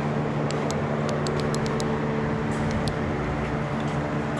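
Steady hum of a running gasoline engine, with a few light metallic clicks over it in the first three seconds.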